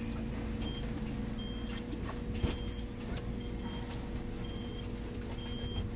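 Interior of a Golden Dragon Astar electric city bus: a short, high electronic beep repeats about once a second over the bus's steady hum and low rumble, with a single knock about two and a half seconds in.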